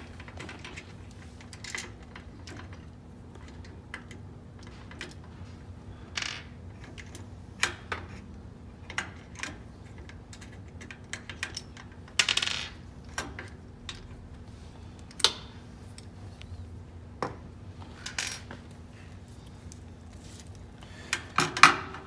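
Scattered metallic clinks, clicks and short scrapes of hand tools and small parts against the quilting machine's aluminium carriage as the channel lock mounting plate is taken off, over a faint steady hum.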